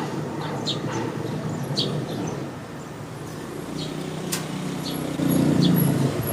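Steady low rumble that swells near the end, with short high bird chirps every second or so and a single sharp click partway through.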